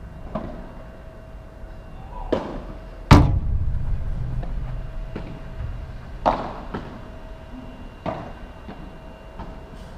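Padel rally: sharp pops of paddles striking the ball every second or two, and one much louder thud about three seconds in, followed by a low boom that fades over a couple of seconds.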